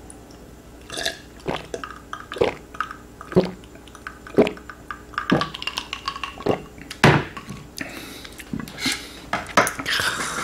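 Drinking from a glass of iced drink: gulps and ice cubes clinking against the glass, a sharp click roughly once a second, then glass and chopsticks knocking lightly as the glass is set down and the chopsticks picked up near the end.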